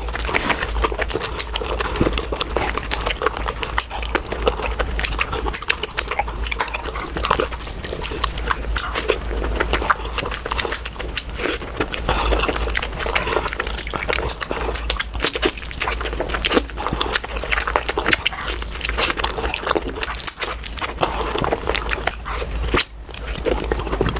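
Close-miked wet chewing and lip-smacking of someone eating puri with mutton curry: a dense, continuous run of smacks and clicks.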